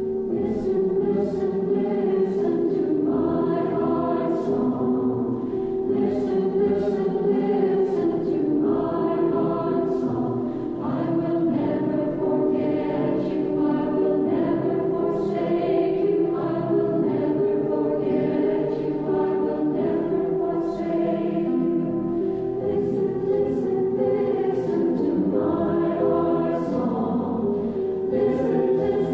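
Church choir singing a choral piece in sustained held chords, the singers' 's' sounds landing together every second or two.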